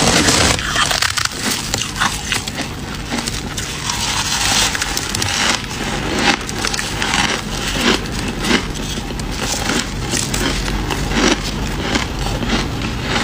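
Close crunching of fluffy freezer frost being bitten and chewed, a quick run of crisp, crackly crunches repeating throughout.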